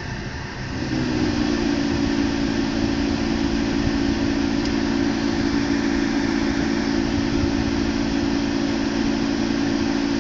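A steady low drone of several close tones comes on about a second in over a steady hiss. This is the annoying noise from the air conditioning of a month-old 2012 BMW 328i, which the owner says sounds like a motorcycle at full speed.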